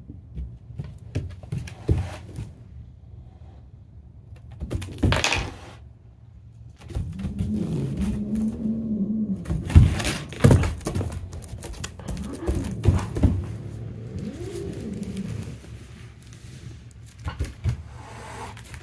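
A cat hissing at a puppy, with low drawn-out growls between the hisses. Sharp knocks on the floor come in between, loudest about ten seconds in.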